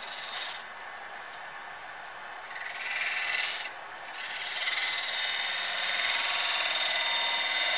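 Walnut vase turning on a wood lathe, sanded by hand against the spinning wood: a steady scratchy rubbing hiss that grows louder about four seconds in and then holds.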